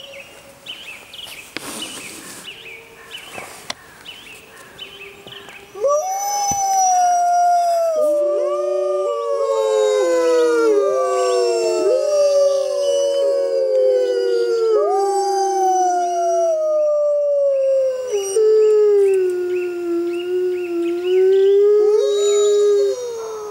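A pack of arctic wolves howling in chorus. After a quieter first few seconds, several wolves start about six seconds in with long, overlapping howls, each sliding down in pitch.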